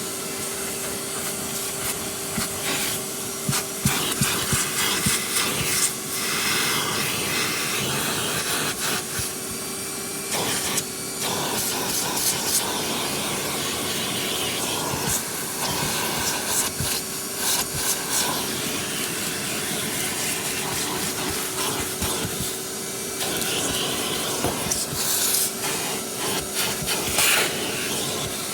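Vacuum cleaner running steadily, its motor holding one constant pitch under the rush of suction, with gritty debris crackling and clicking as it is sucked up from car carpet.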